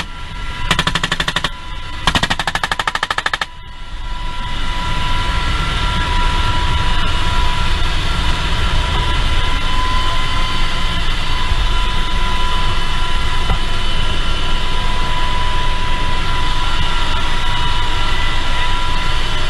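Two long bursts of rapid machine-gun fire in the first few seconds, over the noise of a UH-60 Black Hawk helicopter in flight. After the second burst stops, the helicopter's steady turbine whine and rotor noise go on alone.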